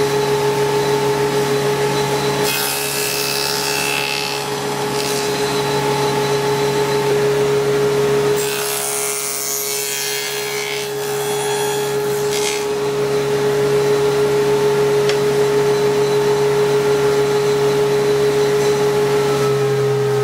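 Table saw with a dado stack running steadily, its motor holding a constant hum, while it cuts away the waste for a mitered half lap; the rough cutting noise swells twice as the wood is pushed through the blade.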